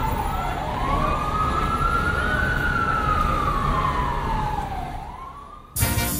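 A siren wailing, its pitch sliding slowly up and down over several seconds above a low noisy rumble, fading out about five seconds in. Near the end a swing band with brass cuts in abruptly.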